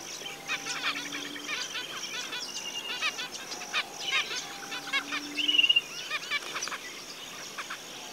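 Zebra finches chirping and singing: a string of short, high chips, with a brief buzzy note about five and a half seconds in.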